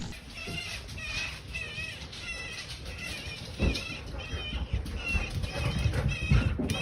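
An animal's repeated short, high chirping calls, two to three a second, over low bumps and handling noise.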